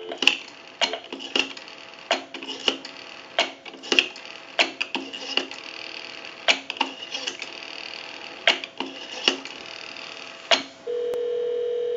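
Rotary dial of a single-slot payphone being wound and released digit by digit, giving a run of sharp clicks as it returns and pulses the line. About 11 s in, a steady ringback tone starts on the line as the dialled call goes through.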